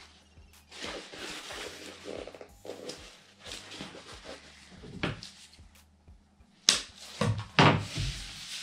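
Vinyl upholstery panel rustling as gloved hands fold it over and pinch the fold. About two-thirds in comes a sharp slap, then a few loud brushing sounds as the sheet is opened out and smoothed flat on a cutting mat.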